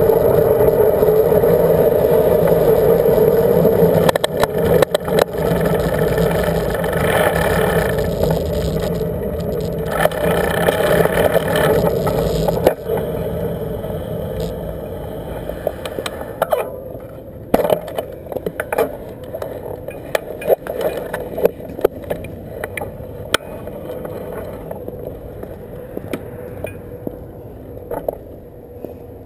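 A recumbent bicycle rolling along a road: steady tyre and road noise that gradually fades as the bike slows. Scattered clicks and rattles come through in the second half.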